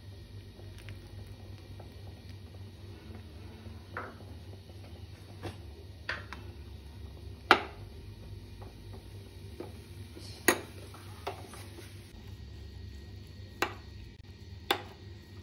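A steel spoon stirring custard powder and milk powder into a little milk in a white bowl. It clinks against the bowl about eight times at irregular intervals, loudest about seven and a half seconds in.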